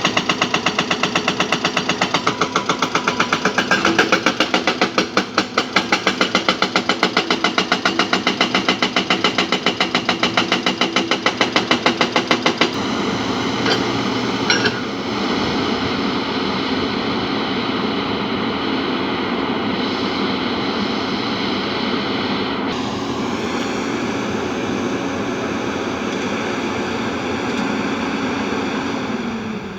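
Heavy earthmoving machine's diesel engine running with a rapid, even knocking for about the first half, then running steadily. Its pitch drops just before the end as it throttles down.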